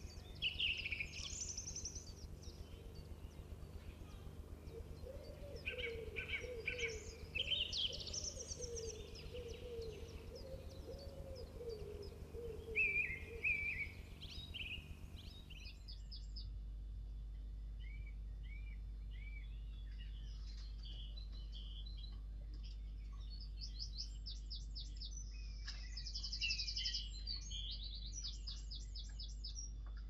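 Woodland songbirds singing, a mix of chirps, whistles and fast trills, with a run of low, repeated curved calls in the first half. About halfway the sound changes to a steady low hum under the birdsong, with bright high trills near the end.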